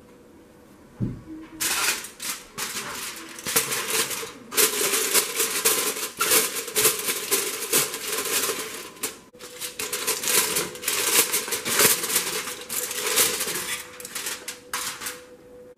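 Sheet of aluminium foil crinkling and crackling as it is pressed over and crimped around the rim of a steel pot, with a short break about nine seconds in. A single low thump comes just before the crinkling starts.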